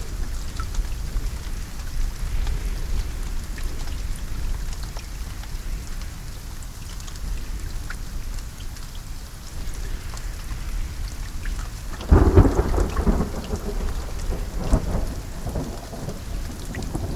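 Steady rain falling, with scattered sharp drop ticks over a deep low rumble. About twelve seconds in, a loud thunderclap breaks and rolls on for several seconds.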